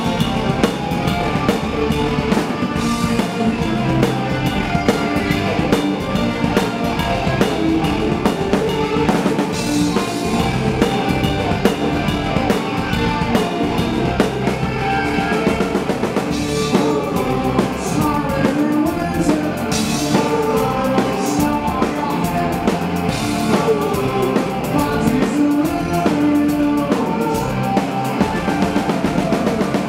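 A rock band playing live: drum kit with cymbals driving a steady beat under electric guitars and bass, loud and continuous.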